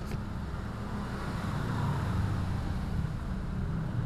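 A steady low engine rumble, like a motor vehicle running, growing slightly louder.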